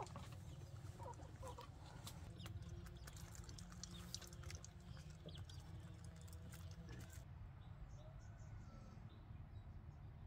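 Chickens clucking faintly over a steady low rumble, with scattered clicks and rustling through about the first seven seconds.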